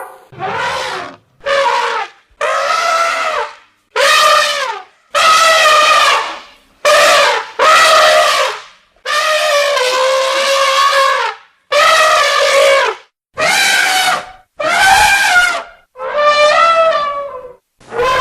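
Elephant trumpeting: a string of about a dozen separate calls, each lasting about half a second to two seconds, with short gaps between them. Some calls bend slightly up and down in pitch.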